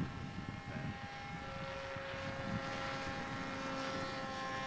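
Electric RC aeroplane motor and propeller giving a steady whine in flight, heard from an airborne camera, with wind buffeting on the microphone that eases after the first second.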